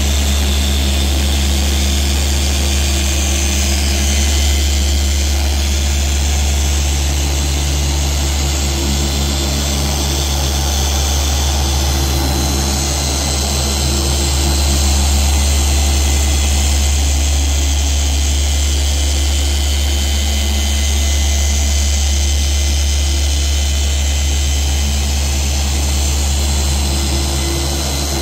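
Rupes dual-action random-orbital polisher running steadily with a yellow foam pad pressed on black car paint, polishing out holograms. It gives an even low motor hum with a few steady tones over it.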